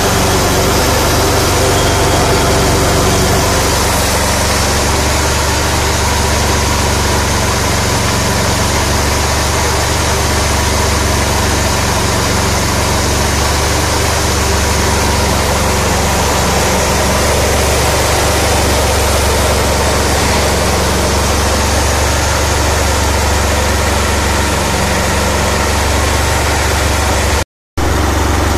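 Small petrol–LPG combo engine running steadily under load, driving a mini rice huller, with a dense steady hiss from the huller over the engine. The sound drops out for a moment near the end.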